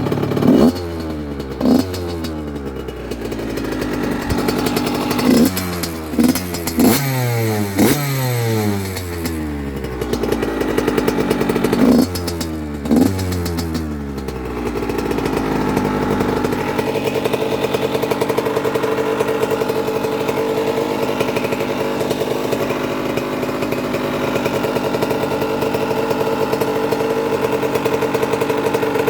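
Yamaha YZ85 big wheel's 85 cc single-cylinder two-stroke engine, about 12 hours since a full rebuild, blipped hard about eight times in the first fifteen seconds, each rev falling back, then settling into a steady idle.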